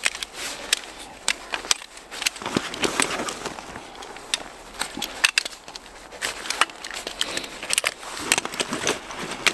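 Camping gear being handled and packed by hand: irregular rustling and crinkling with many sharp clicks and ticks.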